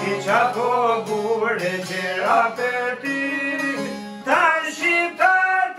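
Male voice singing an Albanian folk song with gliding, ornamented phrases and a long held note, over two plucked long-necked lutes, one of them a two-string çiftelia, keeping a steady drone.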